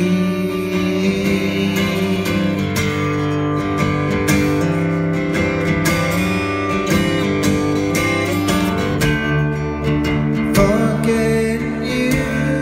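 Acoustic guitar strummed, playing a song's chords live.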